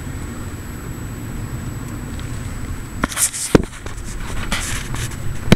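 A car driving, heard from inside the cabin: a steady low rumble of engine and tyres on the road. From about three seconds in come a few sharp knocks and short scraping rustles, the loudest just past halfway and another near the end.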